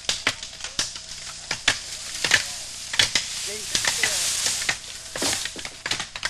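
Bamboo being chopped: irregular sharp knocks, with a rustling hiss of leaves that swells for about a second in the middle.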